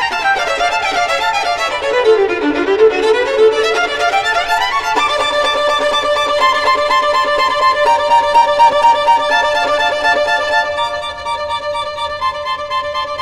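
Violin playing a fast run of notes that falls and then climbs back up over the first five seconds, then settles into longer held notes.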